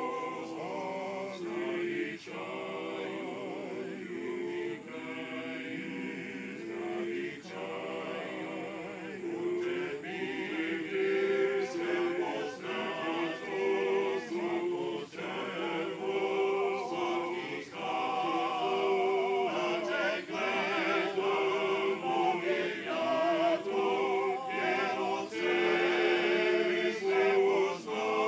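Men's choir singing a cappella in several parts: sustained chords in phrases with short breaths between them, growing louder about halfway through.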